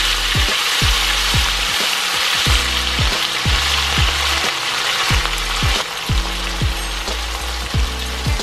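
Whitebait fish sizzling in hot sunflower oil in a nonstick pan, turned now and then with a slotted spatula; the sizzle eases a little about six seconds in. Background music with a steady bass beat runs underneath.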